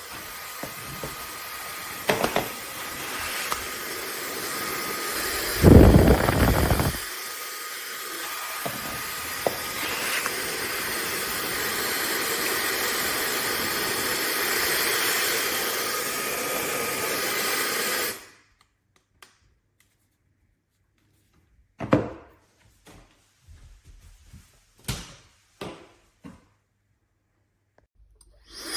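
AINA 2000WE high-speed hair dryer running steadily, with a few knocks and a loud low rumble about six seconds in. It cuts off after about eighteen seconds, leaving silence broken by a few clicks.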